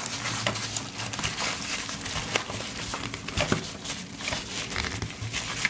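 Fabric organizer pouch rustling and scraping as a pocket knife is pushed into a tight slot, with many small crinkles and clicks throughout.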